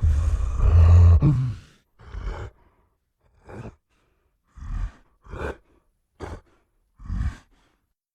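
Giant gorilla vocal sound effect: one long, deep roar of about two seconds, then six short grunts spaced about a second apart.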